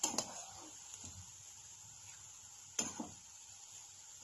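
A steel spatula clinks against the frying pan and strainer while fried soya balls are lifted out of hot oil. There is a pair of sharp clinks at the start and another pair about three seconds in, over a faint steady hiss of the frying oil.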